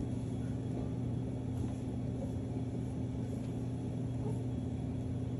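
A steady low hum from a machine or appliance running in the room, holding one unchanging pitch.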